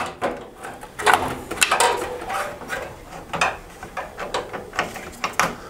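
Nvidia Quadro graphics card being fitted into a PCI Express slot in a desktop PC case: irregular clicks, knocks and scraping as the card's edge and metal bracket are worked into place.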